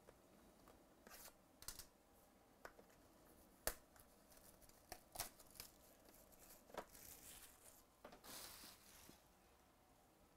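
Plastic shrink-wrap being torn and crinkled off a cardboard hobby box of football trading cards, faintly. Scattered sharp clicks and taps from handling the box, the loudest a little before halfway, with a longer stretch of crinkling near the end.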